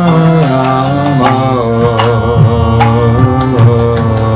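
Kirtan: a man chanting a devotional melody over a harmonium's sustained chords, with percussion strokes keeping a steady beat.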